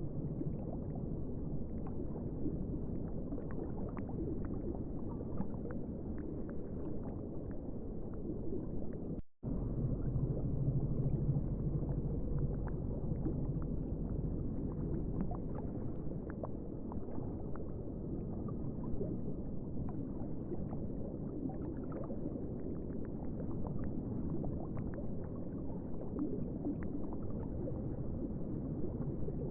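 Water bubbling and gurgling continuously, with many small pops and clicks. A brief drop-out about nine seconds in is followed by a low hum under the bubbling for several seconds.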